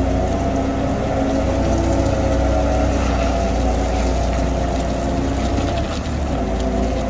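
Volvo EW140B wheeled excavator's diesel engine running steadily as the machine drives along, a constant low hum.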